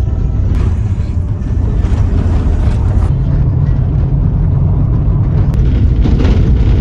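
Loud, steady low rumble of a moving vehicle heard from inside the cabin, road and engine noise with no clear voices.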